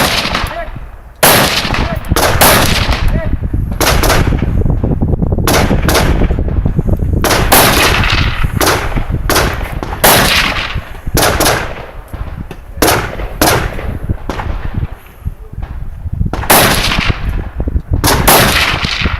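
A rifle fired in a rapid, uneven string of shots, about one to two a second with a couple of short pauses, each shot trailing a brief echo.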